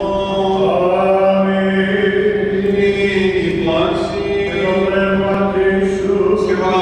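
Male Orthodox liturgical chanting, a solo voice held mostly on one steady reciting note with slow shifts in pitch.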